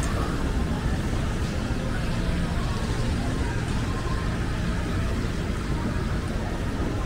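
Steady city street noise: road traffic running, with a constant low rumble.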